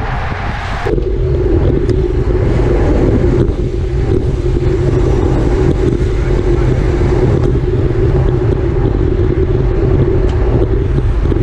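Wind rushing over the microphone of a camera on a road bike ridden at racing speed, with road and tyre noise: a steady, loud rush with a low hum, a little louder and duller from about a second in.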